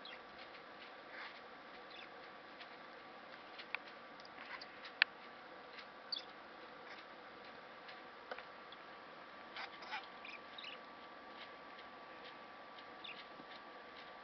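Male budgerigar babbling softly during a courtship display: scattered quiet clicks and short chirps over a faint steady hum.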